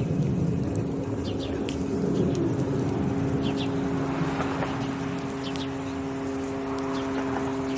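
Zenair CH-750 light sport aircraft flying overhead at about 2,700 ft, its three-bladed propeller and engine giving a steady drone at an even pitch. Small birds chirp briefly now and then.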